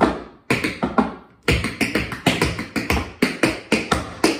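Tap shoes striking a portable tap board in a quick tap combination of stomps, brushes, shuffles and ball changes: a fast run of crisp metal clicks, with a brief gap about a second in.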